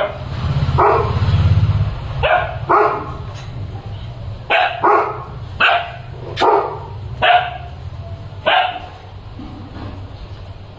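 A dog barking repeatedly, about eight short barks spread over six seconds, most about a second apart, after a low rumble in the first two seconds.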